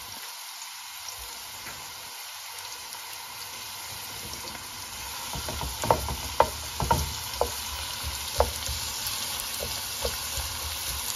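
Chopped onions sizzling steadily in hot oil in a metal wok, at the start of frying them to light brown. About halfway through, a wooden spoon starts stirring them, with sharp knocks and scrapes against the pan.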